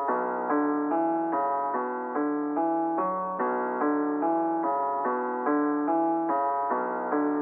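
Background music: a keyboard melody of evenly spaced, sustained notes, about two a second.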